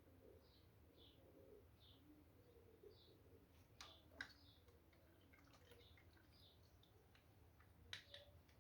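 Near silence: faint bird chirps repeating about once a second, with a few sharp clicks about four seconds in and again near the end.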